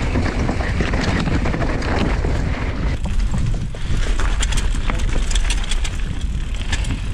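Mountain bike riding fast down a dirt singletrack: wind buffeting the microphone and tyres running over dirt and roots. From about three seconds in, many short sharp clicks and rattles are heard from the bike's chain and parts jolting over bumps.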